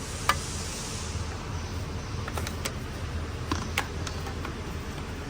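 A few short, sharp clicks and knocks, like tools and parts being handled under a vehicle, over a steady low hum.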